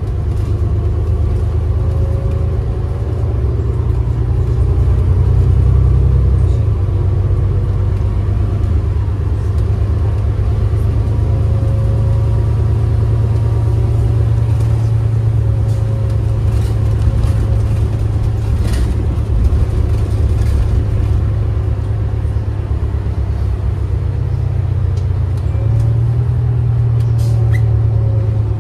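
Cabin sound of a New Flyer XD40 Xcelsior diesel city bus under way: a steady low engine and road rumble with a faint whine, the engine note shifting about six seconds in and again near the end. Small rattles and clicks from the bus body come and go in the middle.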